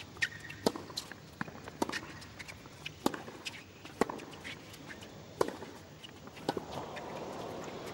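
Tennis rally on a hard court: sharp pocks of racket strings striking the ball, the loudest about a second apart as the players trade groundstrokes. A low swell of crowd sound rises near the end as the point builds.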